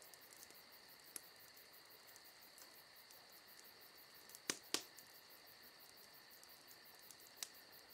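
Near silence: a faint steady high-pitched tone with rapid, even, faint ticking, and two small clicks a little past halfway.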